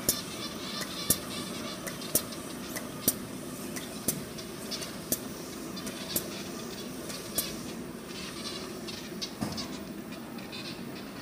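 PUR-glue box-gluing machine running PET plastic box blanks along its belts, with a steady mechanical hum and a sharp click roughly once a second, less regular near the end.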